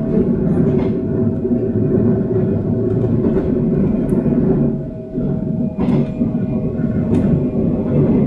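Taiwan Railways EMU700 electric multiple unit under way, heard from inside the car: a steady low running rumble under a constant tone, with a few sharp clicks from the wheels.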